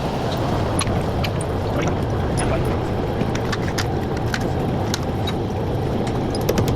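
Steady low rumble of a motor vehicle, with many light clicks and clinks scattered through it.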